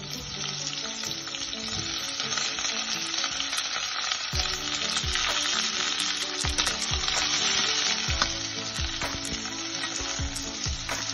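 Sliced onions frying in hot olive oil in a stainless steel pressure cooker: a steady sizzle with scattered sharp pops and spatters as the onions are stirred in.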